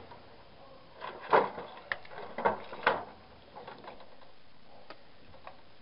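Knocks and clatter of scrap TV parts being handled and tossed onto a pile, with a cluster of knocks in the first half and a few faint ticks after.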